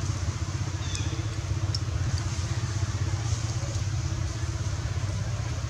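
An engine running steadily, a low even drone like a motorcycle idling, with a few faint short high chirps over it.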